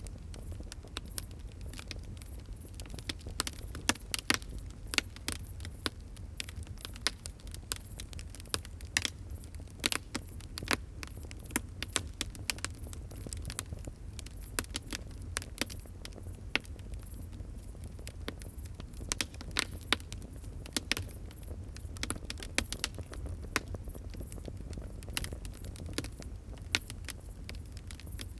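Wood fire crackling, with many irregular sharp pops and snaps over a low steady rumble.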